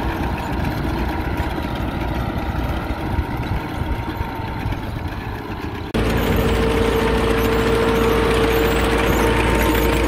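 Tractor diesel engine running steadily as it pulls a six-row maize planter. About six seconds in the sound cuts and turns louder, with a steady high whine over the engine.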